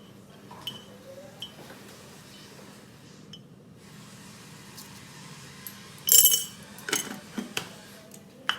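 Kitchen utensils and dishes clinking and clattering in scattered knocks, loudest in a short burst of clatter about six seconds in, over a steady low hum.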